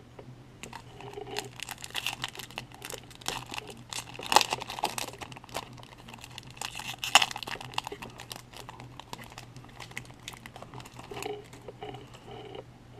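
Foil-lined plastic wrapper of a Topps baseball card pack being torn open and crinkled in the hands: a run of sharp crackles, loudest about four and seven seconds in.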